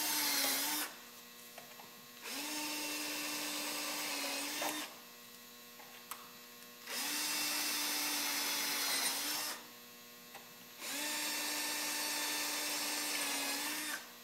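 Cordless drill with a self-centering bit drilling pilot holes. One run ends about a second in, then three more runs of about two and a half seconds each follow with short pauses between. The motor's pitch holds steady through each run.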